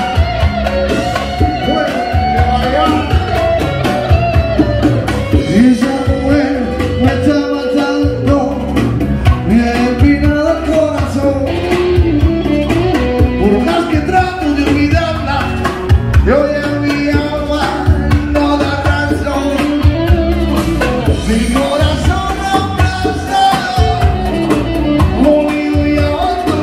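Live band music, amplified through a PA: a man singing into a microphone over guitar.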